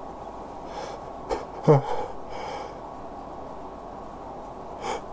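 A man's sneeze build-up: a few short, sharp gasping breaths, the loudest a brief voiced gasp about a second and a half in.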